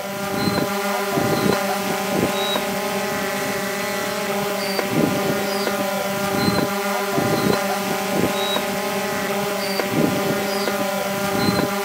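Quadcopter drone's propellers humming steadily in flight, a stack of even tones picked up by the drone's own camera, with short surges in level every second or so.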